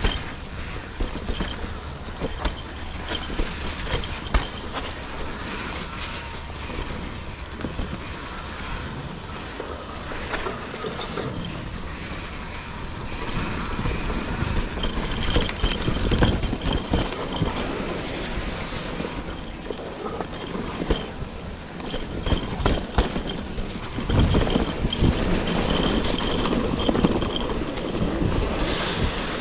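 Mountain bike ridden fast down a dirt trail: tyres rumbling over the ground and the bike rattling and knocking over bumps, getting louder about halfway through, with a thin high squeal coming and going in the second half.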